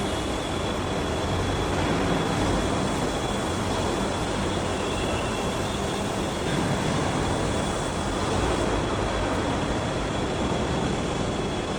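Steady industrial machinery noise: a continuous rumble and hiss with a faint high steady whine, with no separate hammer blows.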